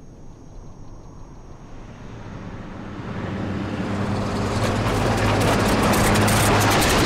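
Engine of an old bus running with a low steady hum, growing steadily louder as it draws near, with rattling over the last couple of seconds.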